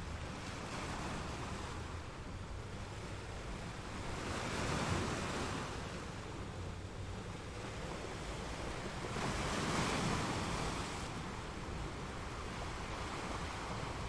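Ocean waves on a windy shore: a steady wash of surf that swells louder twice, about five seconds in and again about ten seconds in, as waves break. Wind rumbles on the microphone underneath.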